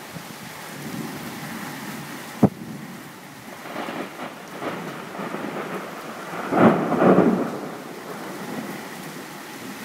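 Thunder rumbling during an approaching thunderstorm, over a steady rushing noise. There is a sharp click about two and a half seconds in, and the loudest rumble swells up about seven seconds in.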